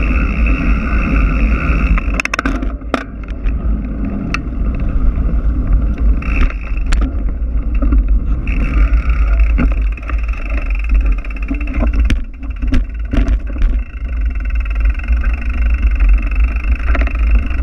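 Wind rushing over a moving microphone as a steady deep rumble, with sharp clicks and knocks scattered through it.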